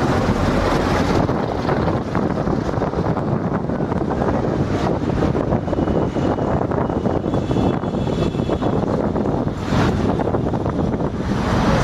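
Steady road and engine noise from a moving vehicle, with wind rushing over the microphone. A bus runs close alongside at the start, when the low rumble is heaviest.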